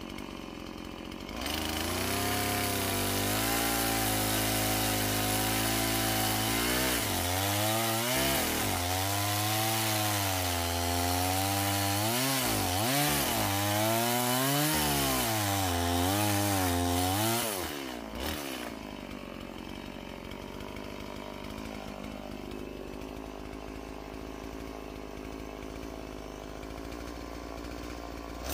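Gas chainsaw revved to full throttle and cutting into a dead tree's trunk to make the felling notch. Its engine pitch dips and recovers as the chain bites the wood. About 18 seconds in it drops back to a steady idle.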